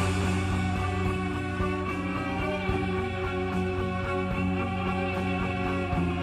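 Background music: guitar rock with a steady bass.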